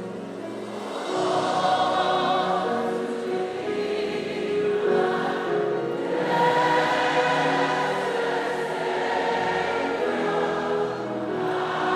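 A gospel worship choir singing slow, long-held chords with no clear words. The sound swells about a second in.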